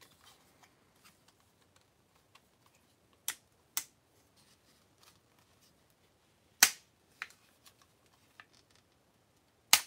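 Hard plastic parts of a Power Rangers Dino Fury Ptera Freeze Zord toy clicking and snapping as the toy is handled and reconfigured: two clicks about three seconds in, a louder snap past the middle, and one more near the end, with faint handling ticks between.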